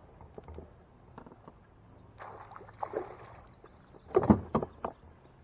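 Splashing water and knocks on and around a kayak as a hooked bass is fought at the boatside, in scattered bursts with the loudest cluster of knocks and splashing about four seconds in.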